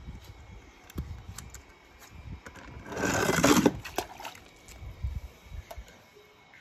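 A short splash of water about three seconds in, lasting under a second, among light clicks and knocks of handling.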